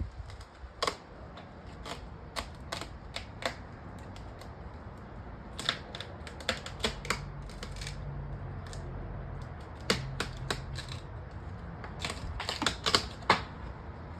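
A series of irregular sharp clicks and snaps, some single and some in quick clusters, with the busiest bunch near the end.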